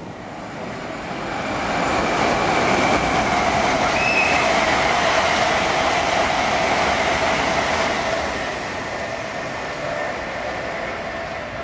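An LNER Azuma high-speed train running past at speed: a rushing of wheels on rail and air that swells about two seconds in, holds, and eases off near the end.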